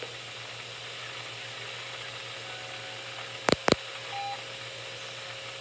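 NOAA weather radio dead air after the broadcast has cut out: steady static hiss with a faint hum and a thin steady tone. Two sharp clicks come about three and a half seconds in, followed by a short beep.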